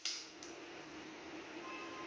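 Metallic clicks of the Artemis CP2 CO2 pistol's bolt being worked to ready the next pellet between shots: a sharp click at the start and a lighter one about half a second in.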